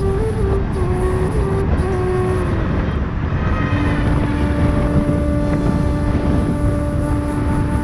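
Motorcycle engine running while riding, with heavy wind and road noise; the engine note shifts in pitch at first, then holds steady from about halfway through.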